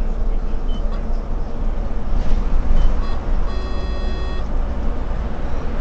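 Cab of a Solaris Urbino 18 articulated city bus driving at speed: steady rumble of the engine and tyres on the road. About halfway through, an electronic beep sounds for about a second, just after a couple of short blips.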